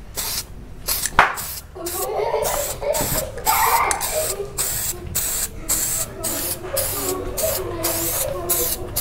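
Aerosol can of black dashboard/trim coating spraying in short hissing bursts, about three a second, as a coat goes onto a plastic car side mirror.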